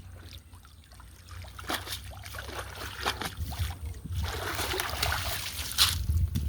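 Water splashing and trickling, growing louder about two seconds in, with a sharp splash near the end.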